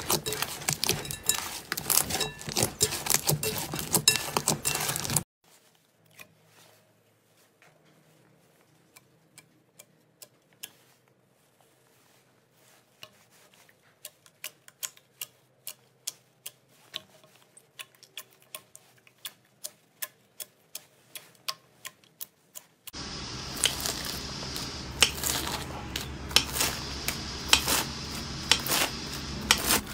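Hands kneading and folding a large cloud slime in a glass bowl, a dense run of wet squishes and pops. After a cut, fingers press a clear jelly slime, heard only as sparse, quiet sticky clicks. About three-quarters of the way through, a blade slices a block of green bead-filled crunchy slime, with a dense, loud crackling.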